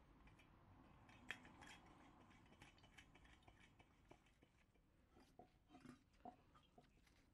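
Faint scattered clicks and light knocks of hands handling a Coleman 508A stove's metal fuel tank and its fittings, with one sharper click about a second in.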